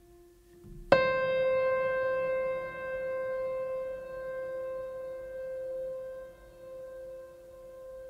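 Calm background music: a single struck, piano-like note about a second in rings on and slowly fades over a soft, low held tone.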